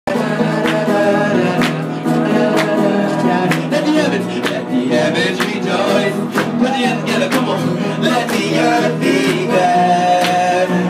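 Gospel music: voices singing over instruments, with a steady beat about once a second.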